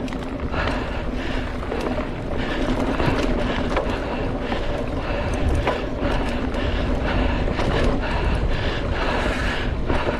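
Mountain bike rolling along a dirt trail: a steady rush of tyre noise and wind on the microphone, with frequent small clicks and rattles from the bike over bumps.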